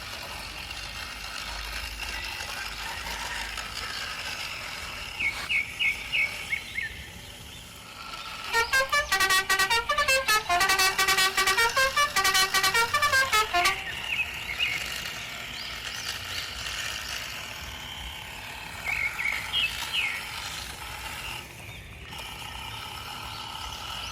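A rapid pulsing electronic tune of notes stepping up and down in pitch plays for about five seconds in the middle. Around it is a steady outdoor background with a few short chirps.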